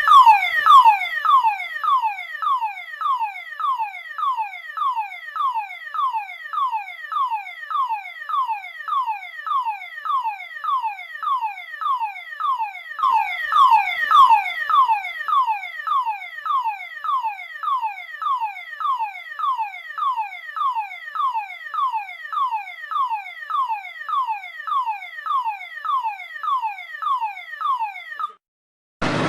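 A 1960s British police siren sounding a repeated falling whoop about twice a second, each sweep dropping in pitch. It swells louder for a moment around halfway and cuts off shortly before the end.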